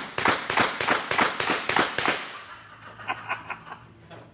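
Rapid semi-automatic fire from a 9mm CZ Scorpion carbine: about eight shots in quick succession, roughly three or four a second, over the first two seconds, each with a short echo. A few lighter clicks follow about three seconds in.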